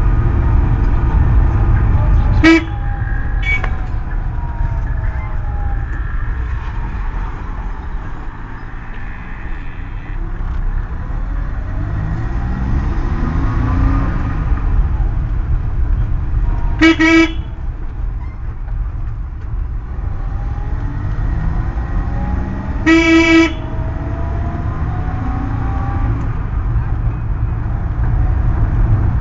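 Vehicle horn honking in short blasts, twice close together a couple of seconds in, then twice more, a little longer, past the middle and about two-thirds through. Underneath runs the steady low rumble of a moving vehicle, its engine pitch slowly rising and falling.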